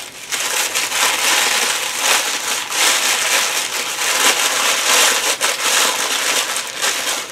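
Tissue paper rustling and crinkling steadily as it is unwrapped by hand from a small gift.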